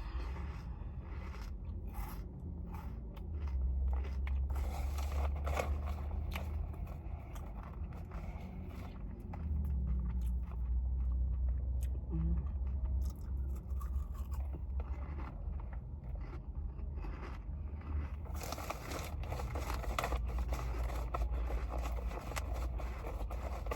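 A person eating close to the microphone: chewing and crunching with many small clicks and scrapes, over a steady low rumble.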